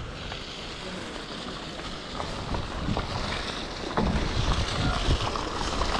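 Wind rushing over a GoPro action camera's microphone: a steady hiss with low buffeting that grows stronger about four seconds in, and a few scattered light knocks.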